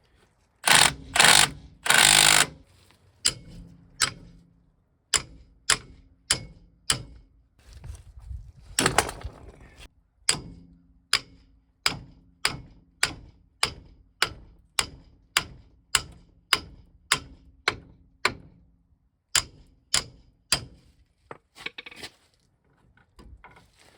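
Three loud, harsh bursts about a second in, then a ratchet wrench clicking in an even rhythm of about two clicks a second as a wheel hub bolt is backed out, with one more harsh burst partway through.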